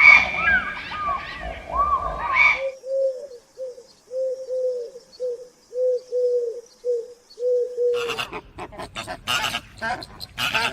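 Several birds calling over one another, then about a dozen short, low, repeated calls from a single bird, roughly two a second, the kind of call made by a cooing pigeon or dove. About eight seconds in this gives way to a harsher, noisier burst of animal sound.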